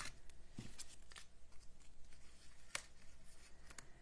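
Paper and cardstock being handled on a tabletop: small die-cut pieces picked up and laid down, giving a few faint clicks and rustles, the sharpest just under three seconds in.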